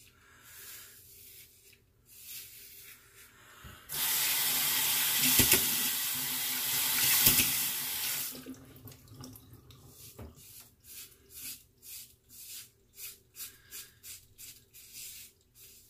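Bathroom sink tap running for about four seconds, with a couple of knocks. Then a shavette razor scrapes over the lathered scalp in short quick strokes, about two or three a second.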